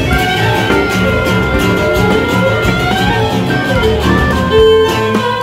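Live acoustic band of violin, accordion, acoustic guitar and double bass playing an instrumental tune, with a long held high note in the first half.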